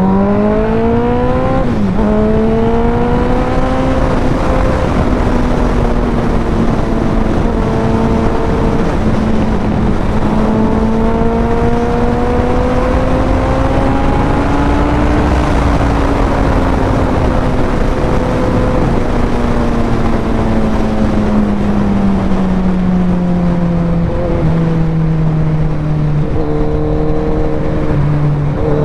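Suzuki Hayabusa's inline-four engine pulling hard, with a quick gear change about two seconds in. The revs then rise and fall slowly through the cruise, drop back around three-quarters of the way through, and climb again right at the end, with wind rushing over the microphone throughout.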